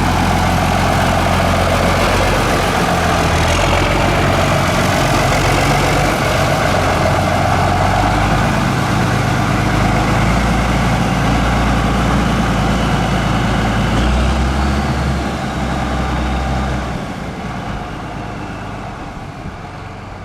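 County 1454 tractor's diesel engine running with a heavy, steady note. The note shifts about two thirds of the way through, then fades away near the end.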